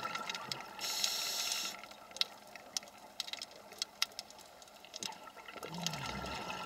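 Scuba diver breathing underwater through a regulator: a burst of exhaled bubbles hissing about a second in, scattered crackling clicks, and a short falling inhale tone near the end.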